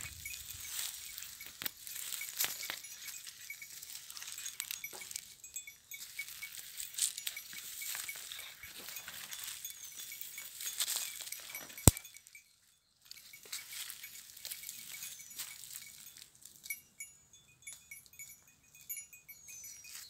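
Small bells on a goat herd's collars tinkling irregularly as the goats browse, over a crackle of dry brush and twigs being pushed through. A single sharp click a little past halfway is the loudest moment.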